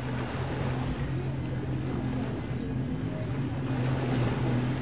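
An engine running with a steady low hum over outdoor background noise, growing a little louder toward the end.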